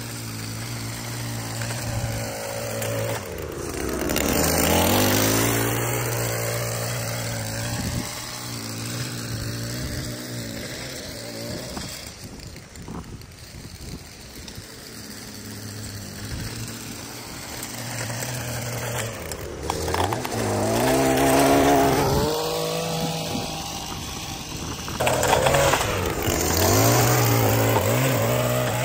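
Small gas engines of lawn-care equipment running steadily, swelling twice as a machine passes close. Near the end a gas-powered stick edger runs close by.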